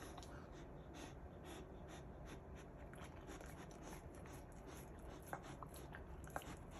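Kishu dog gnawing and licking at a hard frozen Azuki Bar ice bar: faint, repeated short scraping strokes, with a few sharp clicks from teeth on the ice in the second half.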